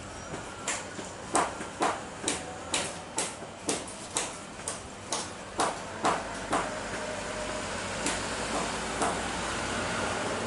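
Sharp knocks repeating about twice a second for around six seconds, then two more spaced further apart. Under them runs the steady hum of a jet airliner on the runway, growing a little louder toward the end.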